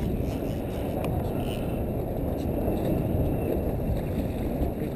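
Steady low rumble of wind on the microphone over the water around an open fishing boat at sea, with no distinct events.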